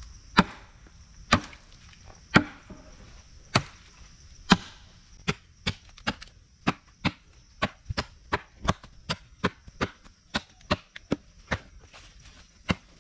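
A large knife chopping into a green tree branch: sharp strikes about a second apart at first, then quicker, about two a second, from about five seconds in.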